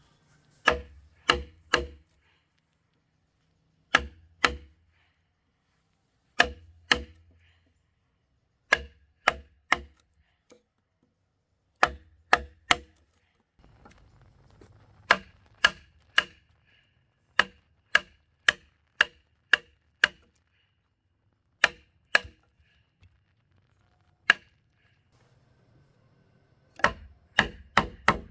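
Hand tool striking wood with sharp, ringing blows, about two a second in short runs of two to six with brief pauses between runs.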